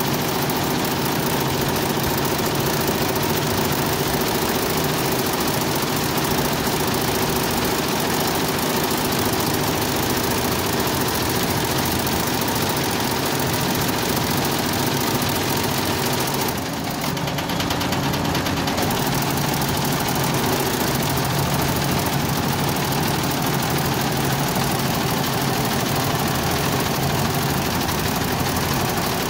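Multi-head industrial embroidery machine running steadily, its needle heads stitching at speed. The sound dips briefly a little past halfway.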